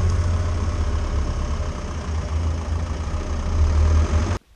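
Land Rover engine running steadily at low speed, heard close up from the bonnet with a strong low rumble. It gets a little louder near the end, then cuts off suddenly.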